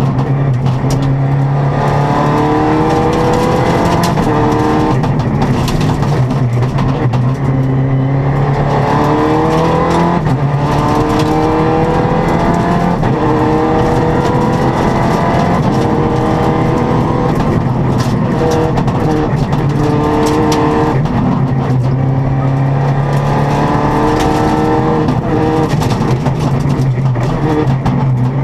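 Rally car's engine heard from inside the cabin, revving up again and again and dropping in pitch at each gear change, with the car being driven hard on a stage.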